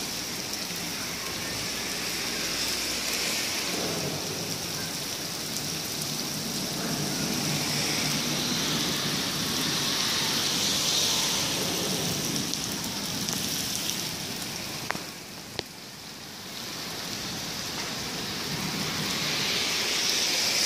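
Heavy rain pouring onto wet paving and a lawn, a steady hiss of downpour. About three-quarters of the way through it dips briefly, with two sharp clicks.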